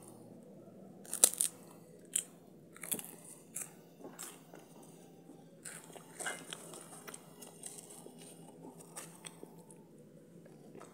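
Crisp puffed grain cake being bitten and chewed: a run of sharp, irregular crunches, the loudest about a second in, growing sparser and quieter near the end.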